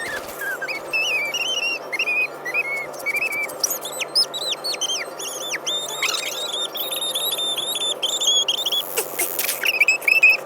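Rapid high-pitched squeaky chirps, several a second, over a steady low hum.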